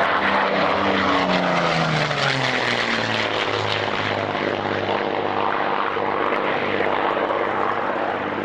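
De Havilland Mosquito's twin Rolls-Royce Merlin piston engines running as the aircraft makes a low pass. The engine note drops in pitch over the first few seconds as it goes by, then holds steady as it climbs away.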